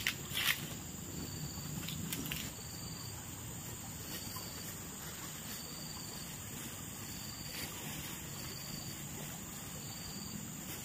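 Insects chirping: a steady high-pitched drone with a short chirp repeating about once a second, over a low steady background hum. A few faint clicks in the first couple of seconds.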